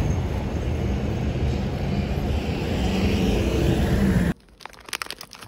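Steady low rumble of street traffic with a vehicle engine humming close by. About four seconds in it cuts off abruptly to a quiet room where a plastic wrapper crinkles in someone's hands.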